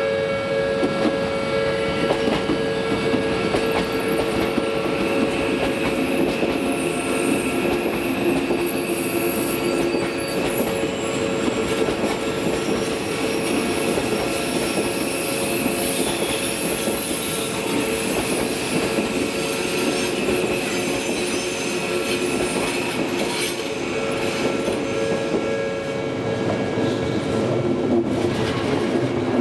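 Odakyu electric train running over a level crossing, its wheels squealing and clattering on the rails, while the crossing's warning bell rings steadily throughout.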